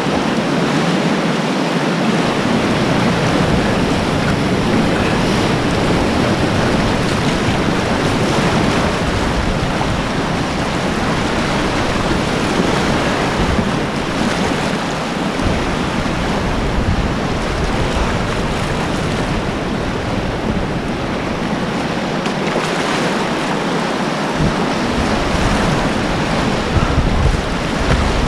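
Whitewater rapids rushing steadily, heard close up from on board a kayak running the rapid, with low rumbles of wind on the microphone that come and go.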